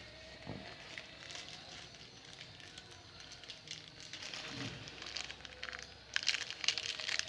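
Packaging crinkling and rustling as hands work at opening the wrapping around a charging cable, growing busier and louder about six seconds in.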